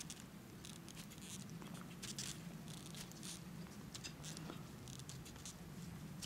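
Faint, irregular rustling and crackling over a low steady hum.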